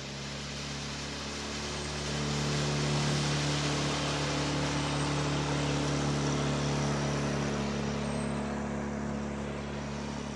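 Outboard motor on a small planing boat running at a steady pitch as the boat passes, louder about two seconds in, then easing off as it heads away.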